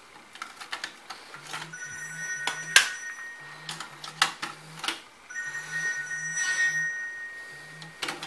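Sharp clicks and clacks from a cassette being handled and the Gradiente ADD-300 double cassette deck's transport buttons being pressed. Through it a telephone rings with repeated electronic trills in groups of three.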